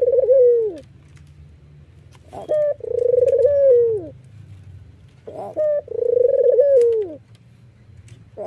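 White ringneck dove (puter) cooing, repeating its call about every three seconds: each coo is a short note followed by a long, even note that drops away at the end. This is the bowing coo, given with a nod of the head.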